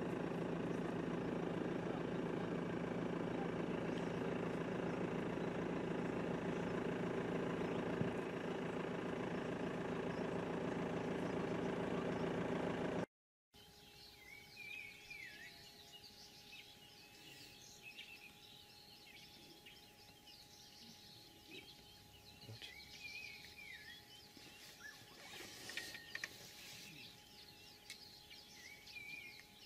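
A vehicle engine idling steadily. It cuts off abruptly about 13 seconds in, and then birds chirp now and then over a faint steady hum.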